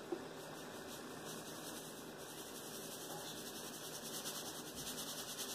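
Faint, steady background hiss: room tone with no distinct event.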